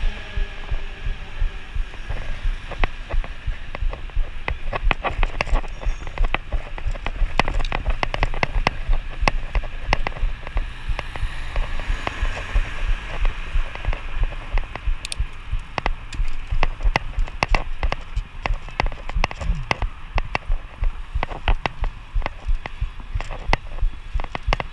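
Wind buffeting a bicycle rider's camera microphone as a low rumble, with many irregular clicks and rattles from the bike over the road surface.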